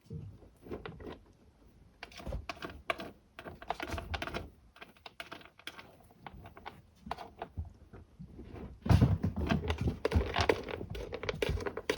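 Kittens scratching and digging in cat litter: irregular rapid scratches and clicks of the litter being raked, getting louder and busier about three quarters of the way through.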